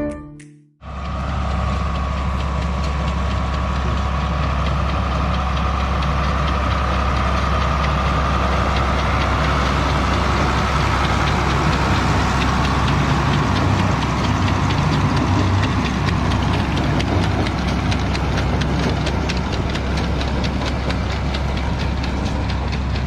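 Tractor engine running steadily with a low, even throb, starting about a second in.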